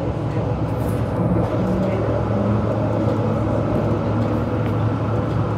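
Tram running along the street, heard from inside the passenger cabin: a steady low hum over rolling wheel-on-rail noise.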